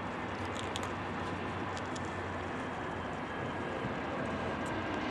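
Distant GE Dash-9 diesel locomotives approaching, a steady low rumble with a hiss over it.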